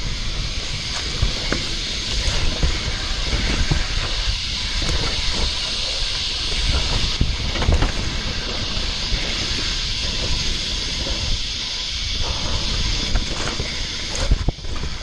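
Mountain bike riding fast down a dirt singletrack: a steady hiss of tyres on dirt and wind on the microphone, with frequent clicks and rattles from the bike over roots and rocks and a sharper knock near the end.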